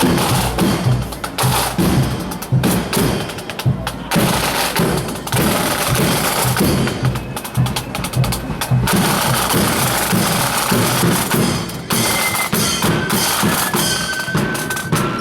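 Marching band playing: snare and bass drums beat a steady rhythm, with a few high held melody notes coming in near the end.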